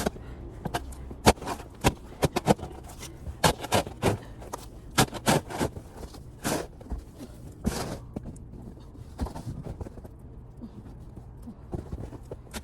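Snow shovel digging and scraping into heavy, wet snow: a run of sharp, irregular strokes, thick over the first eight seconds and fewer after that.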